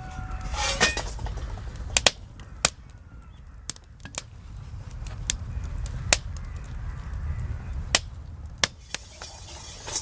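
Cooking in a Chinese wok over a campfire: a scatter of sharp, irregular clicks and knocks, about one a second, over a low steady rumble.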